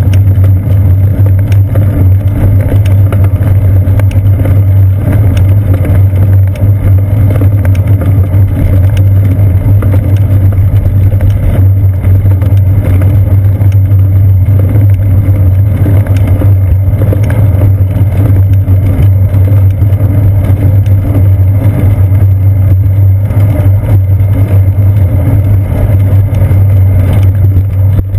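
Loud, steady low rumble of bicycle tyres rolling on a paved path, with frame vibration carried up the seat post into a GoPro in its housing, and small rattles and clicks throughout.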